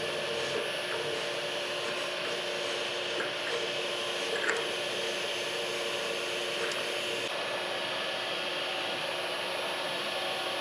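Milling machine spindle running steadily while a twist drill cuts a hole through a small metal plate held in the vise.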